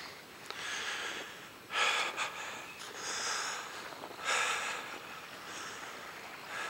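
Slow footsteps crunching through deep snow, about five steps a little over a second apart.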